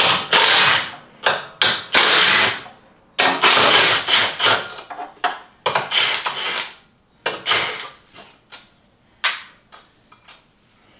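Hand socket ratchet being worked back and forth on a suspension bolt: a run of rasping, clicking strokes about once a second, thinning to a few short clicks in the last few seconds.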